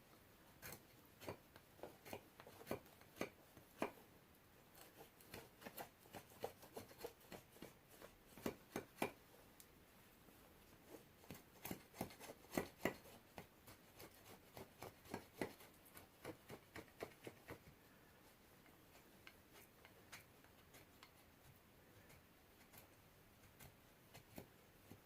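Heavy custom knife made from a pipe wrench shaving curls off a stick of fatwood: short, quiet scraping strokes in irregular runs with brief pauses, sparser toward the end.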